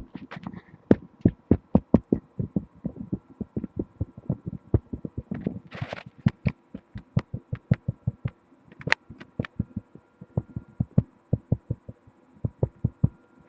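Steady run of dull knocks, about four a second, of bone tapping on wood, picked up through the body by a microphone pressed against it. There is a brief scrape about six seconds in.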